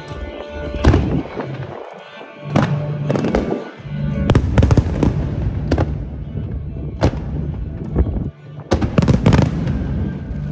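Aerial fireworks shells bursting in a string of booms and crackles, about a dozen sharp blasts, densest about four to five seconds in and again near the end.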